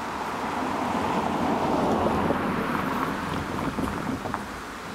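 A car driving past and over a railway level crossing: tyre and engine noise swells to a peak about two seconds in, then fades, with a few light knocks as its wheels cross the rails.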